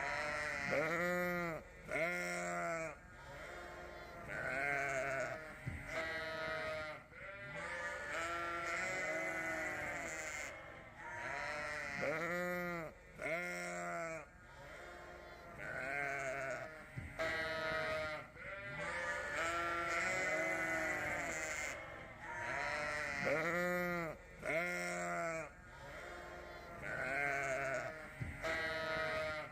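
Sheep bleating, many calls overlapping one after another every second or two, each with a wavering, arching pitch.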